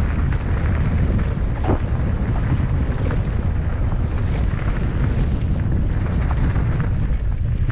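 Mountain bike riding a rough trail: wind rumbling on the microphone over a steady hiss of tyres, with scattered clicks and rattles from the bike.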